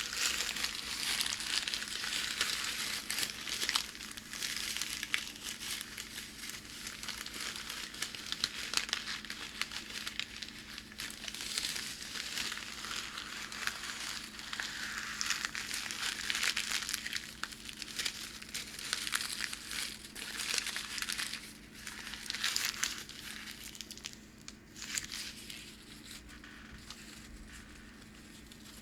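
Packing paper crinkling and crackling as it is handled by hands close to the microphone: a continuous run of scratchy crackles and small pops that grows quieter in the last few seconds.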